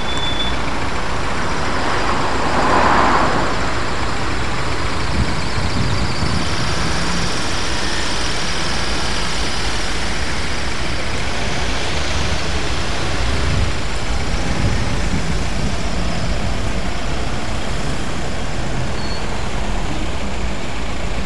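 Steady rumble of road traffic, with a louder swell about three seconds in as a vehicle passes.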